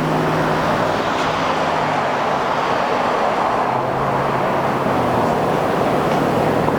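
Steady road traffic noise from passing vehicles, with a low steady hum underneath.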